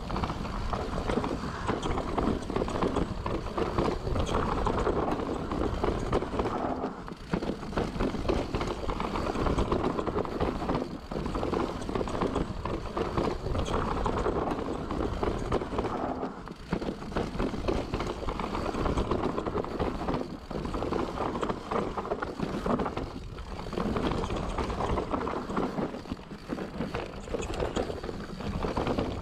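Specialized Enduro 29er full-suspension mountain bike ridden fast down a dirt singletrack: knobby tyres rolling over dirt and rock with a constant clatter and rattle from the bike, easing off briefly every few seconds.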